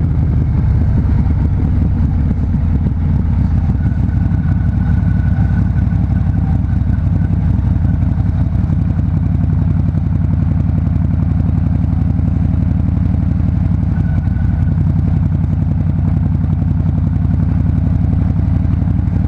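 Harley-Davidson Fat Bob's V-twin engine running at a steady pitch with a fast, even pulse while riding.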